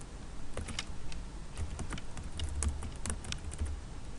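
Typing on a computer keyboard: a run of uneven key clicks as a short name is typed.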